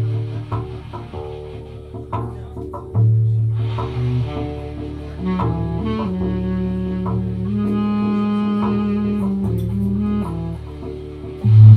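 Live band music carried by a prominent bass guitar line of held low notes, with saxophone and other instruments above it; a loud low bass note comes in near the end.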